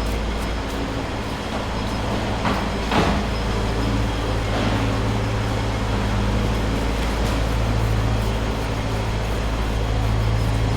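Steady low machine hum, with a few short knocks about two and a half and three seconds in, the second the loudest, and another a little later.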